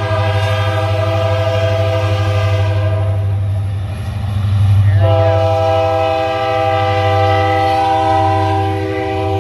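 Engine running steadily at high revs over a low throb, its pitch stepping up about halfway through.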